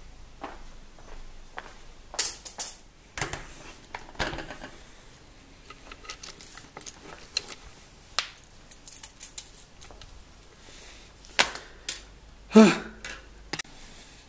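Handling noise from a camera carried and moved by hand: scattered clicks, taps and rustles, with a louder knock near the end.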